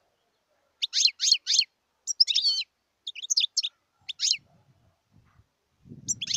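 Wild European goldfinch singing in short bursts: three quick high sweeping notes, then twittering phrases and single chirps, with gaps between them. A faint low rustle comes in near the end.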